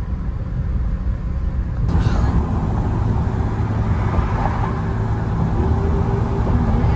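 Road noise inside a moving car: a steady low rumble of engine and tyres, with more hiss from about two seconds in.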